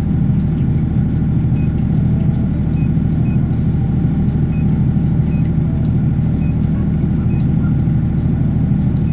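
Diesel standby generator engine running steadily at about 1566 rpm with no load connected, a loud even drone. Faint short high beeps come now and then.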